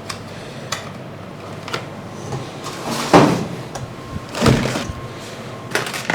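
Packaging being handled during an unboxing: scattered clicks and rustling knocks of boxes and packing material, loudest about three seconds in and again about four and a half seconds in.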